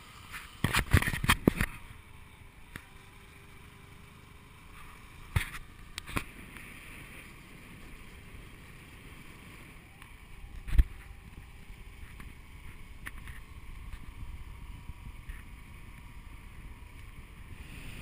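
Small motorcycle taxi running along a rough dirt track, heard from the pillion seat: a faint engine hum that rises and falls a little over steady road and wind noise, with a cluster of sharp knocks about a second in and single loud knocks around five, six and eleven seconds in as the bike jolts over the ruts.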